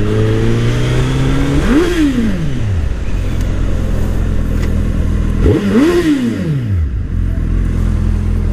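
Suzuki Hayabusa's inline-four engine through an Akrapovic exhaust, running on the road with two quick throttle pulls about four seconds apart; each rev climbs sharply and then falls away as the throttle closes. The pulls take the engine past 4,000 rpm, where this exhaust's note opens up; below that it stays quiet.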